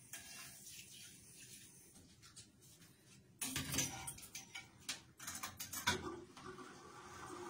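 Light clattering and clicking of hard objects being handled while a small bathroom is cleaned, starting about halfway through and lasting a few seconds, followed by a faint steady hum.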